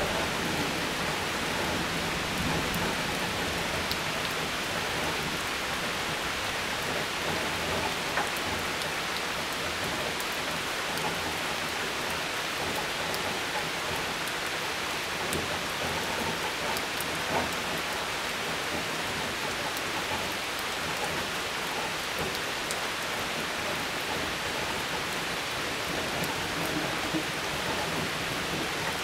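Steady rain falling during a thunderstorm, an even hiss with faint scattered drop ticks.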